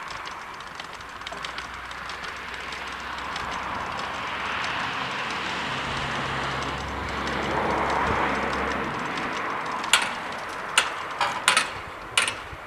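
Level-crossing barrier drives running as the two striped booms swing down, with a steady low hum from the motors, followed by a handful of sharp clacks and rattles near the end as the booms come to rest in the lowered position.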